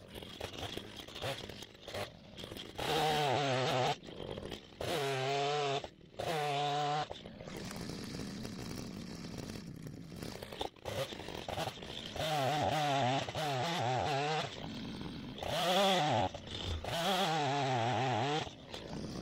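Petrol two-stroke chainsaw cutting logs: about six full-throttle bursts of a second or two each, the pitch wavering as the chain bites. Between the cuts the saw drops back to a lower running sound.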